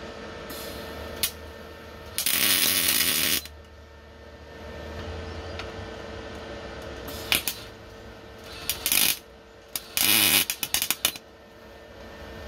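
MIG welder arc crackling in short bursts as a bolt is tack-welded onto a U-joint bearing cap: one longer burst of about a second early on, then several brief bursts, the last ones stuttering on and off, over a steady hum.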